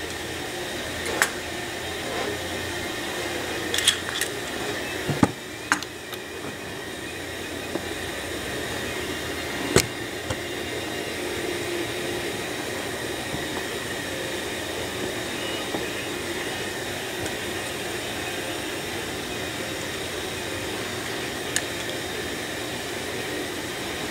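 Small metal clicks and taps as Corvair distributor parts, the drive gear and shaft, are handled and fitted. A few come close together in the first ten seconds and one more near the end, over a steady background hiss with a faint steady tone.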